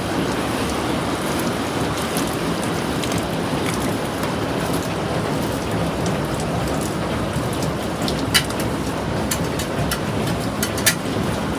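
Heavy rain falling steadily during a thunderstorm, with a few sharp taps of drops striking close by, the two loudest late on.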